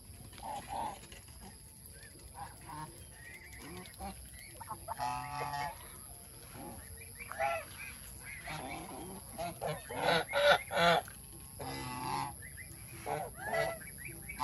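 Domestic geese honking in irregular bouts of calls, loudest about ten to eleven seconds in.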